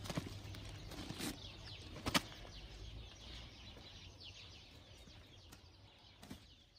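Many small birds chirping in short falling notes, over a steady low hum, with a few sharp knocks; the loudest knock comes about two seconds in. The whole sound fades out towards the end.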